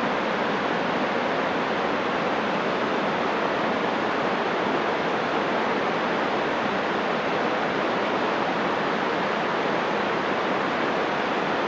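Rushing mountain stream pouring over rocks: a steady, even rush of water.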